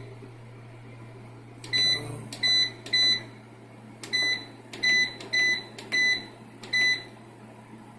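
Short electronic button beeps from a PIP solar inverter's display panel as its readings are paged through: eight high beeps at uneven spacing, over a steady low hum.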